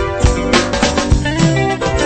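Live gospel band playing an instrumental passage on electric bass, electric guitar, keyboard and drum kit, with regular drum hits under sustained keyboard chords.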